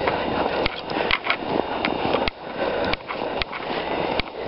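Footsteps moving through woodland ground litter and brush, a continuous rustling crunch with frequent sharp snaps and clicks.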